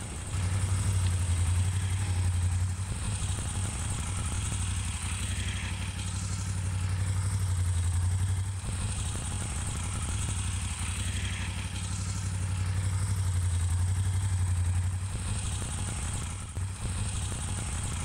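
A steady low motor hum with a fast fine pulse, swelling and easing slowly every few seconds.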